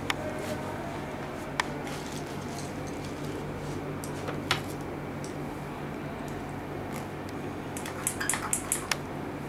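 A few scattered sharp plastic clicks, then a quick run of about six clicks near the end as a hand-held cupping vacuum pump is squeezed to draw suction on a plastic cup. A steady low hum runs underneath.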